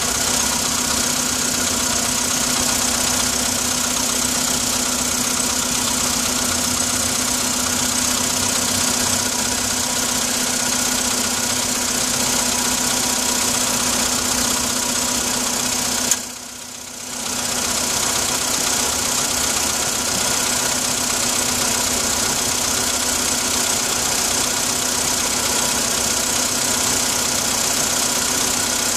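Car engine idling cold with a knocking noise, the cold-start knock the video is about. The sound is steady except for a sudden drop of about a second roughly halfway through.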